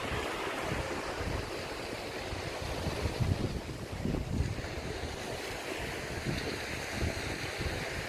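Small sea waves washing onto a sandy beach, heard as a steady wash, with wind gusting across the microphone in irregular low rumbles.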